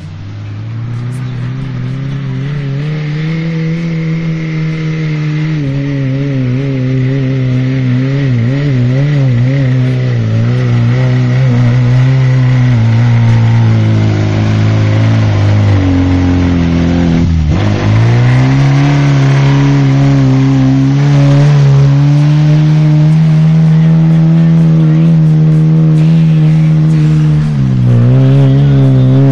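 Suzuki off-road 4x4's engine revving hard as it churns through deep mud, the pitch wavering as the wheels spin, growing louder as it nears. The revs drop sharply and climb again about two-thirds through, and dip once more near the end.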